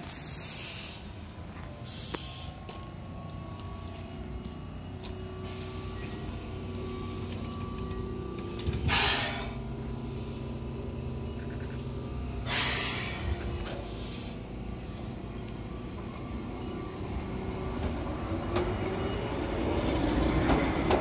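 Keihan 600-series electric train standing at the platform with a steady low hum, giving two sharp hisses of compressed air a few seconds apart. Near the end it pulls away, with a rising motor whine and growing running noise.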